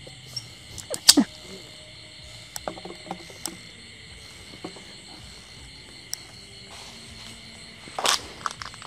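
Steady chorus of night insects such as crickets, with scattered footsteps and small crackles on the garden ground. A sharp crack about a second in, the loudest sound, and a brief crunch near the end.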